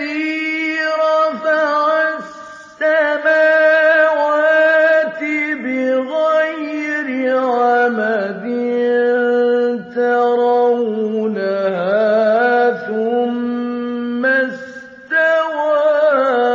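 A man's voice chanting Quran recitation, drawing vowels out into long, ornamented held notes. He pauses briefly twice, about two seconds in and near the end.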